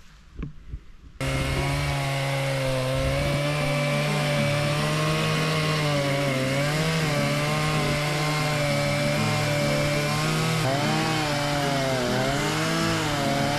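A chainsaw starts abruptly about a second in and runs at high speed, cutting into the trunk of a large maple being felled. Its pitch wavers up and down as it works in the cut.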